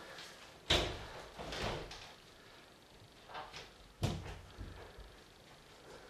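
Glass shower-cubicle door shutting with a sharp knock about a second in, then softer knocks and rustles and a second sharp knock against the door about four seconds in.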